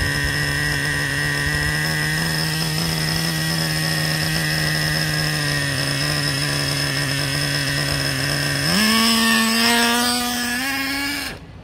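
Traxxas Revo 3.3's two-stroke nitro engine idling steadily. About three-quarters of the way through its pitch climbs as the throttle opens and the truck moves off, steps up again, then the sound cuts off suddenly near the end. The engine is running lean, its low-speed needle wrongly set from the factory, the run that damaged it.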